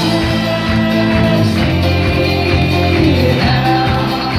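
Live folk-pop band playing at full volume: strummed acoustic guitar, keyboard and drums over a steady bass, with voices singing along.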